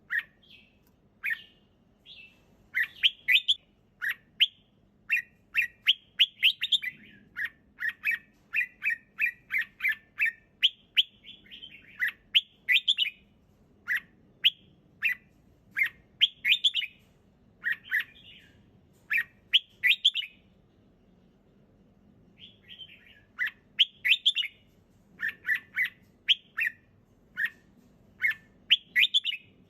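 Red-whiskered bulbul singing: quick phrases of short, clear chirping notes, one after another, with a pause of about two seconds around two-thirds of the way through.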